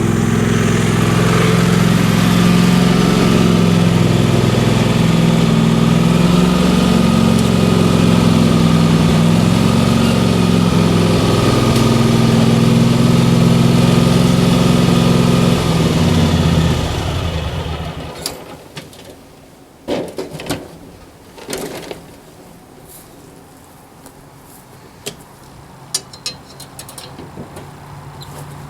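A lawn mower's small engine running steadily, then shutting off about seventeen seconds in. A few scattered knocks and clicks follow.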